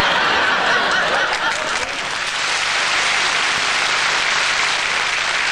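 Studio audience applauding and laughing, a dense, steady clatter of clapping that is slightly fuller in the first couple of seconds.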